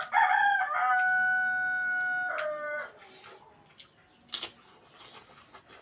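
One long pitched animal call lasting about three seconds: a short broken start, a long steady held note, then a falling end. A faint knock follows later.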